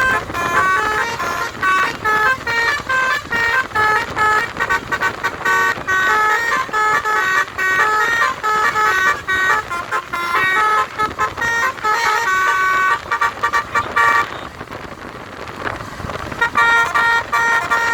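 A Kramat Djati tour bus's telolet basuri multi-tone musical air horn plays a quick melody of short notes. It breaks off for about two seconds near the end, then starts up again.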